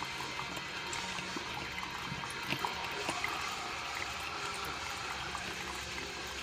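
Drip coffee maker brewing: hot water trickling steadily into the glass carafe, with small scattered ticks and sputters.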